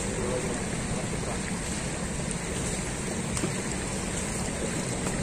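Steady rushing of a flood-swollen, fast-flowing muddy river.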